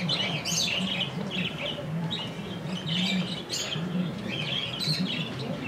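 Caged pet birds chirping and twittering in short, repeated bursts, about one a second.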